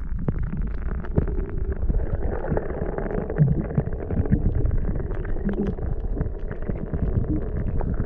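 Muffled underwater sound picked up by a camera held below the surface beside a boat: a steady low rumble of moving water with many small clicks and taps.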